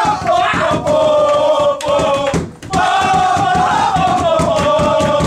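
A group of footballers chanting and singing a victory song together at full voice, with thumps of jumping and slapping beneath. The singing breaks off briefly about two and a half seconds in, then starts again.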